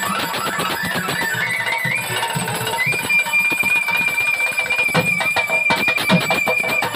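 Violin playing a Bengali folk melody that climbs step by step, then holds one long high note from about three seconds in, over a quick rhythmic beat.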